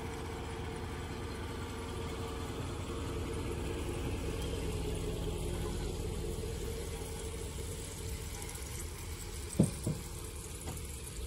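Pickup truck engine idling steadily, with two short sharp knocks close together near the end.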